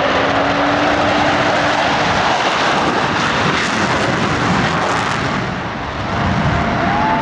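Aircraft engine roar as a display aircraft flies past: a loud, steady rushing noise that dips briefly about six seconds in.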